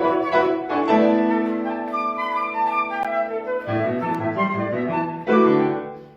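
Flute and piano playing a contemporary classical piece together, with sustained flute notes over piano. About five seconds in a loud accented chord sounds, and then the music dies away at the end.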